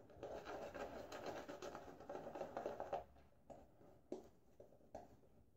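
Gillette Fat Boy adjustable safety razor with a Sputnik blade scraping through lathered stubble, a faint crackling rasp. It strokes almost continuously for about three seconds, then comes in a few separate short strokes.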